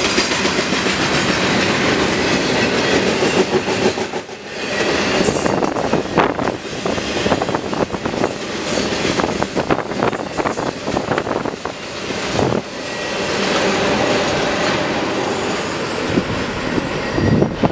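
Intermodal freight train of double-stack well cars and trailer flatcars rolling past, its wheels clacking over the rail joints.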